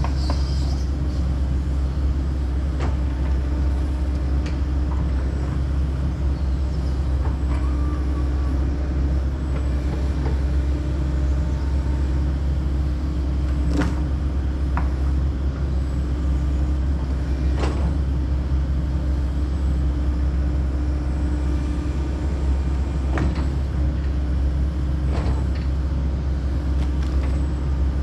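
Kobelco SK140 excavator's diesel engine running steadily under work, with a few sharp knocks over the drone.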